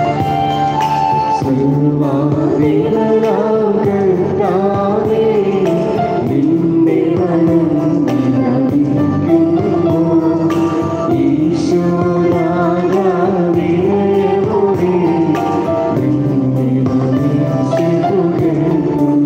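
Liturgical hymn sung by voices over a sustained keyboard accompaniment: held chords underneath a slow, wavering melody.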